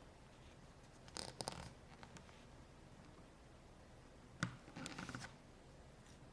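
Two short bursts of small clicks and scraping from hands handling a small plastic toy, about a second in and again past four seconds, over near silence.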